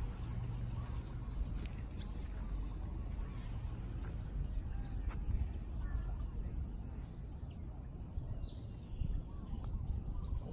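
Open-air ambience: a steady low rumble with a few faint bird chirps.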